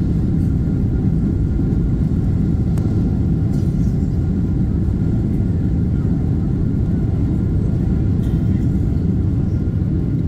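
Cabin noise of a Boeing 777-300ER rolling along the runway after touchdown: a steady, loud low rumble from the wheels and airframe, with a faint steady hum above it.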